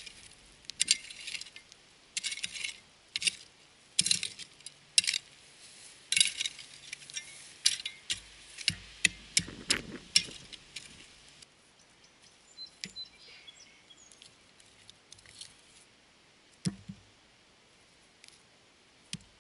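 Metal shovel blade scraping and digging into gravelly soil with small stones clinking, a quick series of short strokes through the first ten seconds or so. After that come fainter clicks of stones being moved by hand and one louder knock about seventeen seconds in.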